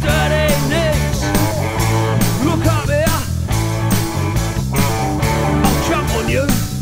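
Rock band playing: a steady drum beat with bass and guitar, and a wavering melody line on top.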